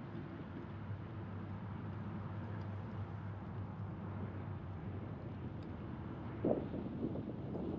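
Steady rumbling wind and rolling noise of travel along a paved bike path, with a low hum through the first five seconds and a few short knocks near the end.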